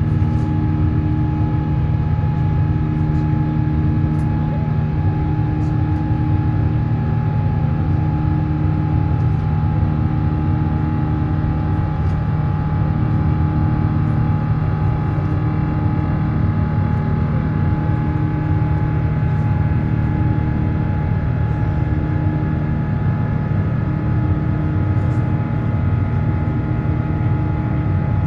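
Steady drone of an airliner's jet engines heard from inside the cabin: a low hum with a few steady whining tones over a constant rush, with no change in pitch or loudness.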